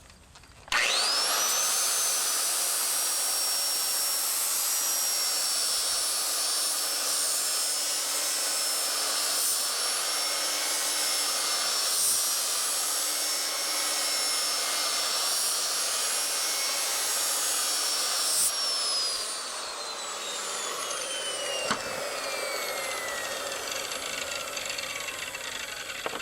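Electric angle grinder with a flap disc starting up with a fast rising whine, then grinding steadily on a steel anvil edge to blend out torch cut marks. Past two thirds of the way through it is switched off and its whine falls steadily as the disc spins down, with one knock along the way.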